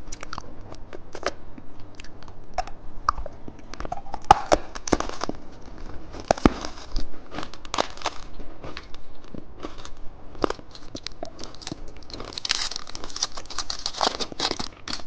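A candy wrapper being crinkled and torn open by hand: scattered sharp crackles and clicks, with a denser spell of crinkling near the end.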